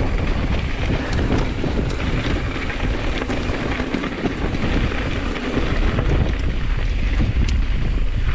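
Strong wind buffeting an action camera's microphone as a steady low rumble, with a few light clicks and rattles from a hardtail mountain bike on a rough downhill trail.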